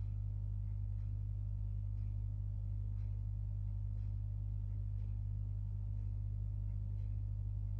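A steady low hum with a few faint steady overtones and no other events: constant room hum.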